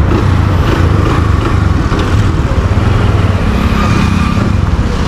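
Mahindra Centuro's small single-cylinder four-stroke engine running steadily as the motorcycle is ridden, on its newly fitted chain and sprocket set.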